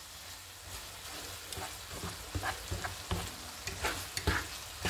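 Macaroni with stewed beef and onion sizzling gently in a frying pan while a spatula stirs it, with several short scrapes and knocks of the spatula against the pan.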